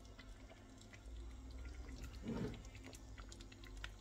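A spoon moves through pork and chicken adobo in its sauce in a pan, with faint liquid dripping and small scattered clicks. A short voice sound comes about halfway through.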